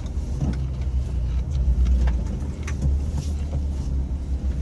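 Jeep's engine and drivetrain running with a steady low rumble as it crawls a trail, heard from inside the vehicle, with scattered light knocks and rattles.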